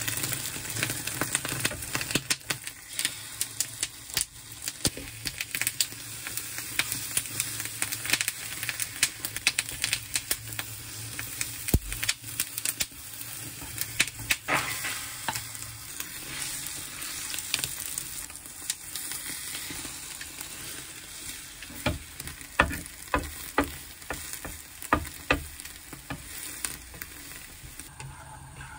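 Egg omelette sizzling steadily in a square egg-roll pan over a gas flame, with wooden chopsticks tapping and scraping against the pan as the egg is rolled up.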